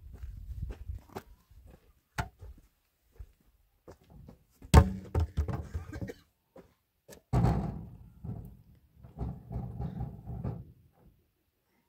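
Long wooden poles knocking and thudding as they are pulled off a pickup truck's load and set down on the ground. There is a string of irregular knocks; the sharpest comes about five seconds in and another heavy one a little past seven seconds, each with a short ringing tail.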